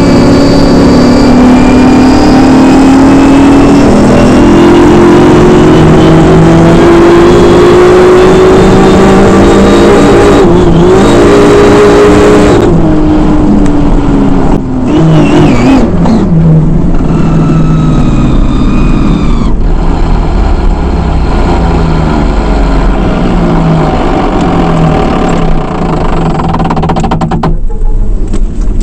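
Alcohol drag boat's engine heard on board, loud and running high for about twelve seconds with its pitch slowly rising. It then drops away and runs unevenly at lower revs as the boat slows, with a low rush of water and wind growing near the end.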